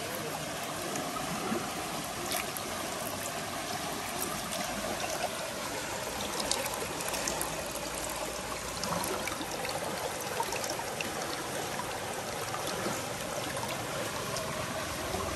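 Fast-flowing stream water running in a steady rush, with a few faint ticks and splashes here and there.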